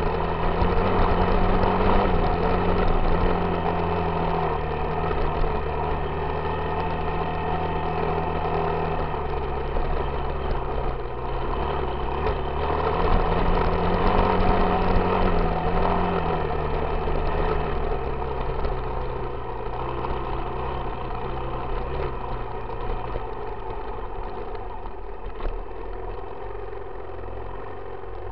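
Yamaha YZ dirt bike engine running under way, its revs rising and falling as the rider throttles on and off, then settling lower and fading near the end as the bike slows.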